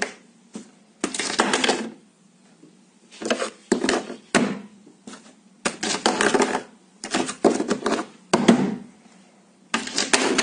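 Metal desk cable-grommet cap rattling and clattering in its ring as it is pushed up from below and drops back, in a series of irregular bursts.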